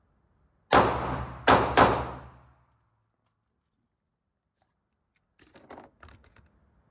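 Three 9mm pistol shots from a Glock 19X: one, then two in quick succession about three-quarters of a second later, each with a short echoing tail. A few faint clicks follow near the end.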